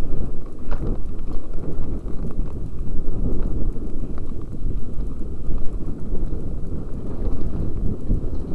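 Mountain bike riding down a rough dirt singletrack, heard through a helmet-mounted camera. A loud, continuous low rumble of jolts and knocks as the camera bounces on the helmet, with a few sharper clicks.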